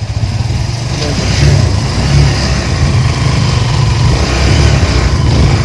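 Kawasaki motorcycle engine of a sidecar tricycle running as it pulls away, getting louder about a second in and holding there.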